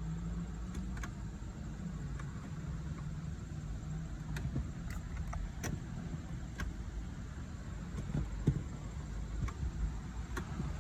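BMW 745i V8 engine running at idle: a steady low rumble, with scattered light clicks over it.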